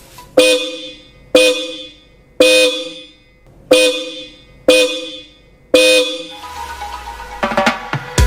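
Hella Supertone dual-tone 12 V electric snail horns sounded in six short honks, about one a second, the low and high tones (about 300 Hz and 500 Hz) sounding together. Music comes in near the end.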